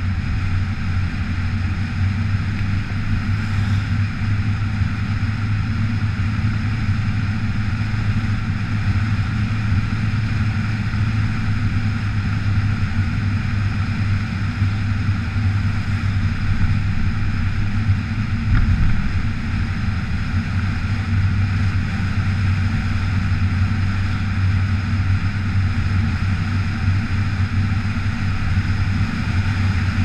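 Steady drone of a vehicle driving at road speed, picked up by an outside-mounted camera: engine hum, tyre noise on wet pavement and wind on the microphone, with one brief low bump a little past the middle.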